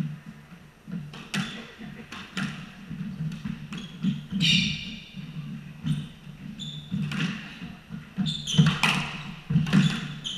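Squash rally: the ball cracking off rackets and court walls every second or so, court shoes squeaking on the wooden floor, and quick footfalls thudding in the echoing court.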